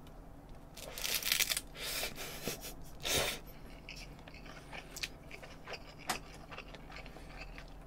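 Chewing of a mouthful of seaweed-wrapped tuna-mayo triangle kimbap with spicy noodles, in short crunchy bursts over the first three seconds, then a few faint clicks.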